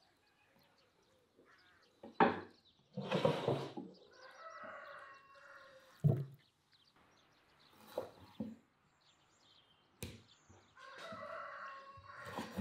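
A knife cutting raw oxtail into pieces on a wooden cutting board, with a few sharp knocks as the blade strikes the board and the pieces are set down. A rooster crows twice in the background, about 4 seconds in and again near the end.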